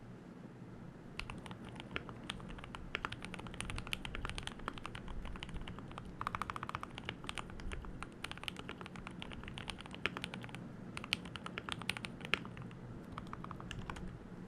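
Typing on a Keychron K2 V2 mechanical keyboard fitted with lubed Gateron Milky Yellow Pro linear switches and stock keycaps: a steady stream of irregular key clacks starting about a second in. About six seconds in there is a quick run of rapid keystrokes.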